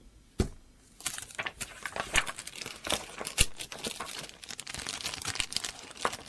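Paper rustling and crinkling as a booklet's pages are handled and turned, with a single knock about half a second in.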